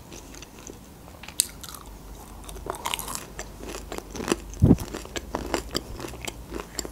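Close-miked chewing of breaded chicken strips with a crust of crushed chips and cereal flakes: many small crisp crunches, with a low thump a little past halfway.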